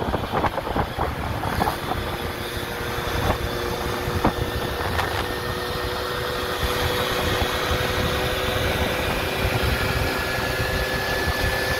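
Freshly rebuilt Gilera Runner scooter engine running at a steady pace on the road, its whine holding one pitch from a few seconds in and creeping up near the end, under heavy wind rumble on the microphone. A few light knocks in the first half.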